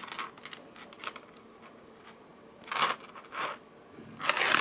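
Soft handling sounds of beading thread being tied into knots by hand: light rustles and small clicks, with a few short scratchy swishes, the loudest near the end.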